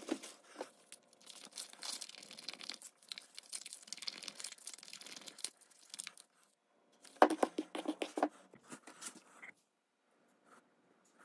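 Crinkling and rustling of flexible plastic epoxy mixing cups handled in gloved hands, with scratchy scraping. About seven seconds in comes a louder run of clicks and knocks that lasts a couple of seconds.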